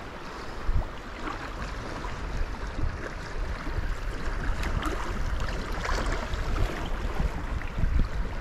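River water splashing and lapping against a kayak's hull as it drifts through choppy current, with gusty wind rumbling on the microphone.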